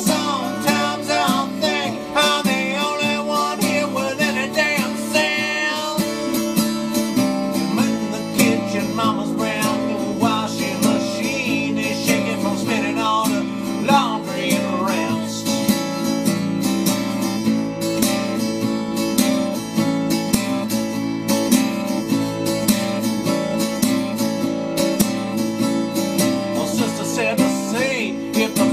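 Acoustic folk-rock music carried by a strummed acoustic guitar with a steady rhythm, a melody line weaving over it in the first half.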